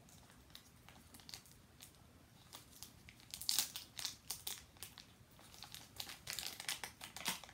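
Small toy packaging crinkling and tearing as it is picked open by hand: scattered crackles that thicken after a couple of seconds, with the loudest bursts near the middle and toward the end.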